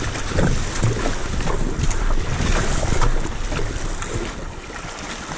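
Wind buffeting the microphone over water rushing and splashing along the hull of an FG Canoe NRX surfski as it is paddled through choppy sea, with the paddle blades splashing in. The noise eases somewhat near the end.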